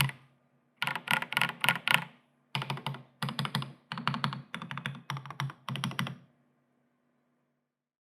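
Typing on a Matrix NOAH 65 custom mechanical keyboard with JWK EV-02 linear switches (lubed with 3204 and filmed), a UHMPE plate and SA-profile keycaps. Bursts of rapid keystrokes with short pauses between them, stopping a little over six seconds in.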